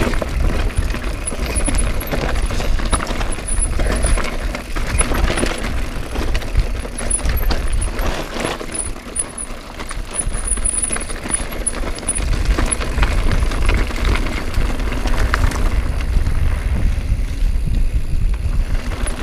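Mountain bike riding over rocky dirt singletrack, with wind buffeting the GoPro Hero4's microphone as a steady low rumble. The tyres roll over gravel and stones, and the bike rattles and clatters in many small knocks over the bumps.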